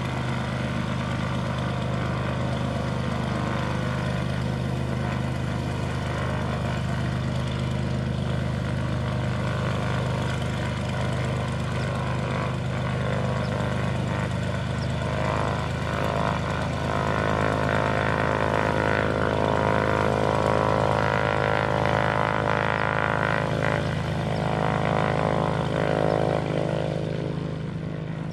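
Cessna 182T Skylane's fuel-injected Lycoming IO-540 six-cylinder engine and propeller running at low power as the plane taxis, a steady drone. It grows louder about halfway through and fades near the end.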